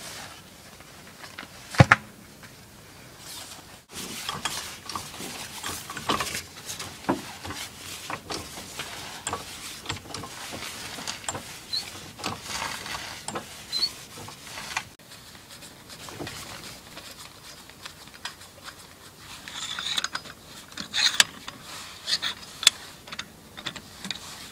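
Wheel change on a van: a sharp knock as a steel wheel is handled, then knocks about once a second as a hydraulic floor jack is worked. Near the end come quick metallic clicks as the wheel nuts are turned with a lug wrench.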